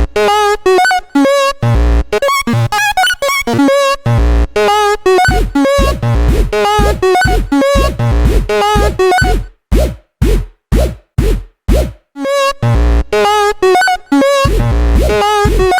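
Electronic dance track with a heavy bass beat, built from rapidly repeated, chopped railroad-crossing bell tones. Partway through, the tones break into short stuttering stabs separated by brief gaps.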